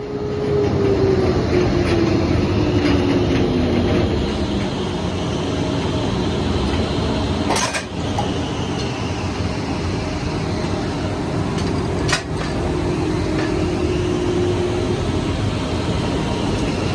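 Oil drilling rig floor machinery running with a loud, steady rumble and a humming tone that falls in pitch over the first couple of seconds, then holds steady. Two sharp metal clanks ring out, about four and a half seconds apart.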